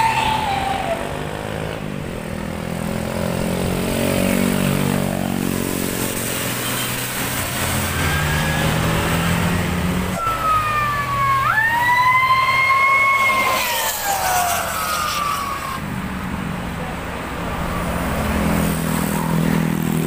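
Tour buses passing with their diesel engines running, and about halfway through a bus sounds a Basuri telolet horn: a siren-like two-tone call that climbs, holds and then slides down over about four seconds. A shorter falling horn tone sounds right at the start.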